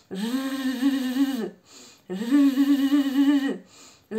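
A woman buzzing like a mosquito, a sustained voiced buzz held twice for about a second and a half each, with a short breath in between. It is the 'mosquito' speech-therapy exercise for the rolled R: tongue edges pressed to the teeth, mouth slightly open, a felt-tip marker propping the tongue.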